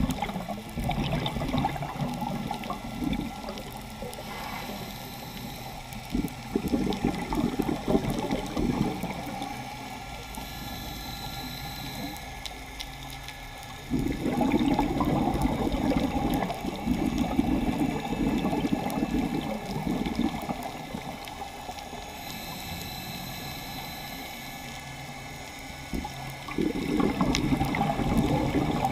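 Scuba diver breathing through a regulator underwater. Long gurgling rushes of exhaled bubbles alternate with quieter inhalations that carry a faint high hiss, in a slow cycle of several breaths.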